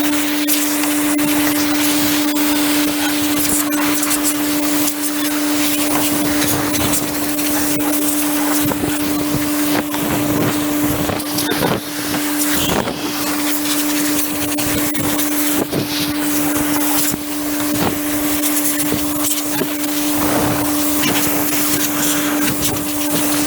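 A compressed-air blow gun blasting dust and chaff off a baler: a loud, steady hiss that eases briefly a few times. A steady machine hum runs underneath.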